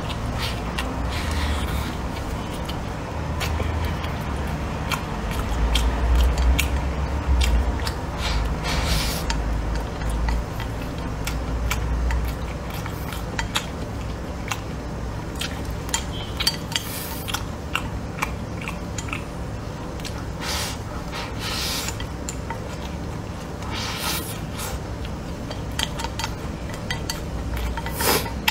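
Close-miked chewing of a mouthful of fried rice, with short clicks and scrapes of wooden chopsticks against a ceramic bowl and a few brief swishes as rice is shovelled in.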